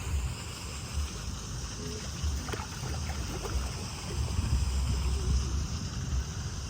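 Sea surf washing on a beach, a steady rushing hiss, with wind buffeting the microphone in uneven low rumbles.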